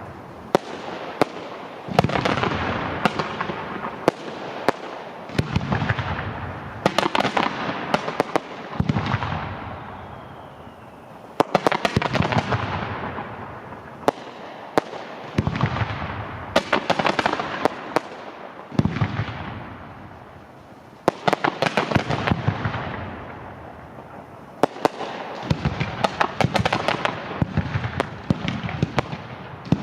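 Fireworks display: repeated volleys of sharp bangs every few seconds, each followed by a long crackling, rumbling tail as the shells burst and fade.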